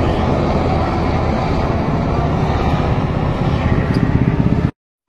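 Helicopter flying overhead: a loud, steady rotor and engine drone with a strong low hum that cuts off suddenly near the end.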